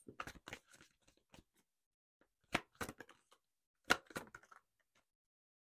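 Tarot cards being handled: a scatter of short, sharp card clicks and snaps as cards are pulled from the deck and turned over, the two sharpest about two and a half and four seconds in.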